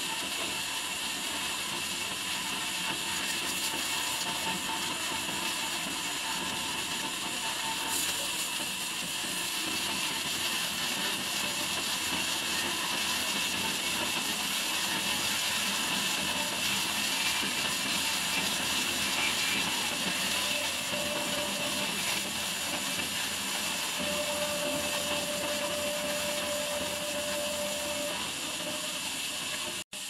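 Horizontal band sawmill running, a steady hissing noise with no break; a faint whine comes and goes near the end.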